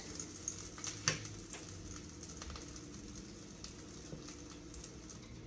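Sliced sausage sizzling in a frying pan, with light clicks of a fork against the pan as pieces are turned and lifted out; the sharpest click comes about a second in.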